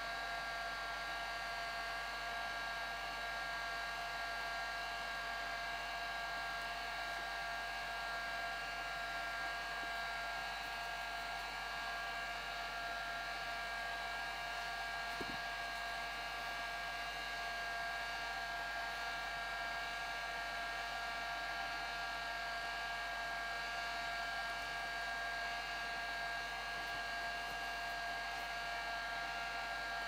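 Heat gun running steadily: an even rush of air with a steady whine from its fan motor.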